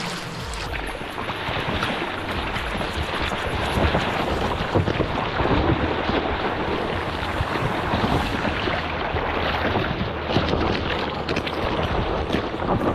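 Water splashing and churning continuously as people swim and wade hurriedly through a deep underground river.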